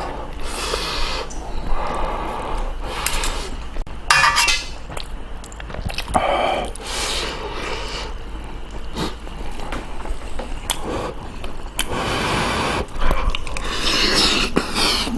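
A person eating kimchi stew and rice close to the microphone: irregular chewing and slurping noises, with a few sharp clicks scattered through.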